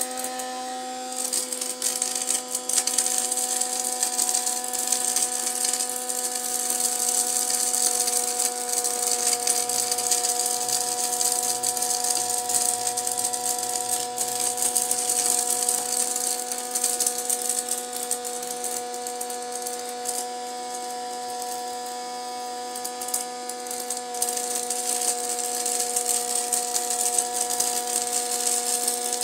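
Small electric motor spinning the fan of a homemade plastic-bottle vacuum cleaner: a steady whine with a hiss of rushing air.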